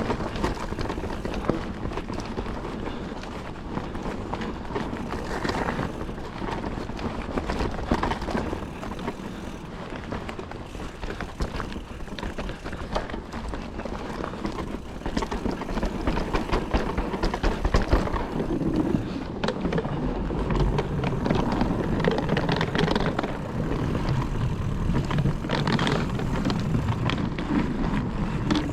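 Calibre Triple B mountain bike riding down a loose, dry dirt trail: tyres rolling and skittering over dirt and stones, with a steady clatter of rattles and knocks from the bike. It gets a little louder and rougher about halfway through.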